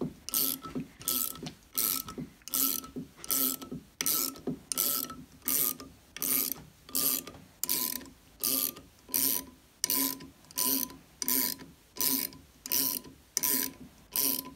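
Ratcheting wrench clicking in short bursts, about three every two seconds, as it is swung back and forth to tighten the nut on an all-thread puller that is drawing a rocker arm shaft out of a small-engine cylinder head.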